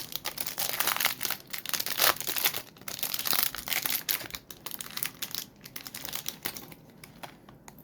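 Plastic lure packaging crinkling and rustling as it is handled and opened, with many small crackles, dying down near the end.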